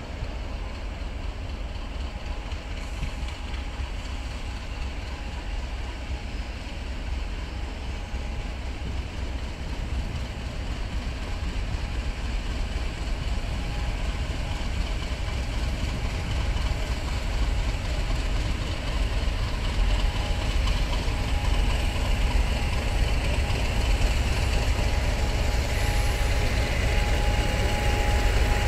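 GB Railfreight Class 50 diesel locomotive with its English Electric 16-cylinder engine, running slowly in at the head of a rake of coaches. Its low engine rumble grows steadily louder as it draws near, and a thin steady whine comes through more clearly over the last several seconds.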